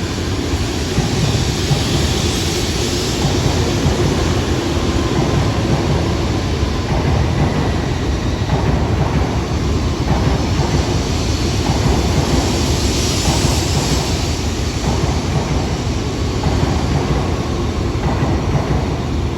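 Shinkansen train moving slowly along the station platform: a steady, loud running noise of wheels and traction equipment.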